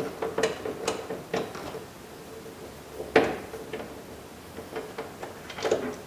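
Screwdriver turning out the single screw that holds a car's inside door handle: light clicks about twice a second in the first two seconds, a sharper click about three seconds in, and a few more knocks near the end as the plastic handle is worked loose.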